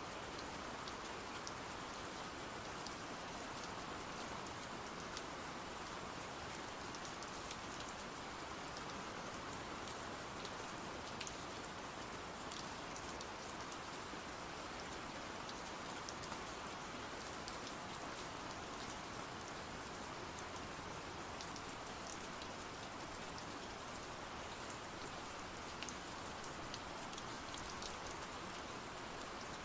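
Steady rain falling, an even hiss with scattered faint sharp ticks.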